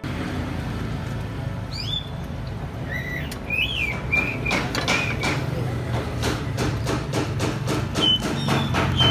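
Background music with a steady beat, with short high whistled chirps heard over it in two clusters, around the middle and again near the end.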